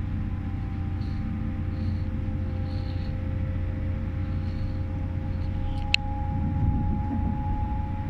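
Interior running noise of a moving GWR Class 800 train: a steady low rumble with faint steady whining tones. One sharp click about six seconds in.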